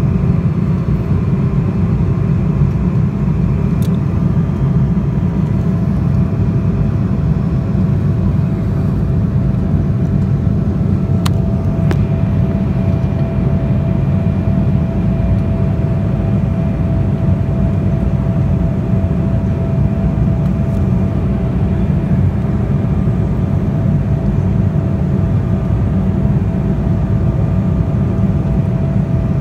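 Steady cabin noise inside an Embraer 190 airliner in flight: a constant low roar of airflow and its CF34 turbofan engines, with a steady tone running above it. A couple of faint clicks come near the middle.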